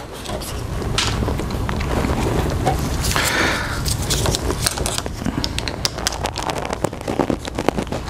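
Screwdrivers clicking and scraping against the metal fittings of a motorcycle fuel pump as they are worked for leverage, with many short clicks and a brief scrape about three seconds in. A steady low rumble runs underneath.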